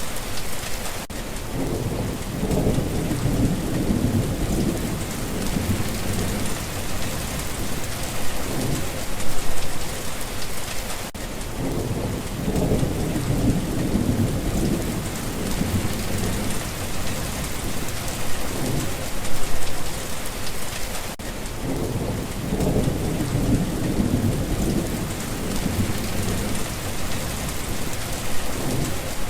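Steady rain falling with a constant hiss, and rumbles of thunder rolling in about every ten seconds, three times.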